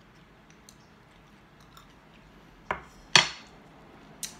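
Faint eating sounds, then two sharp knocks of a wooden spoon against a glass bowl about three seconds in, the second the louder with a short ring, and a small click near the end.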